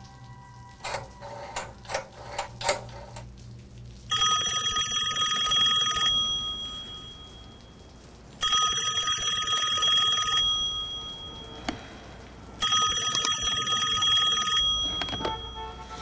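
A few short clicks, then a landline desk telephone rings three times. Each ring lasts about two seconds and fades out before the next one starts.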